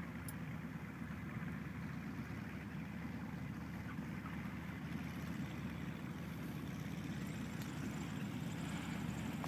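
Light airplane's engine running steadily, growing slightly louder toward the end.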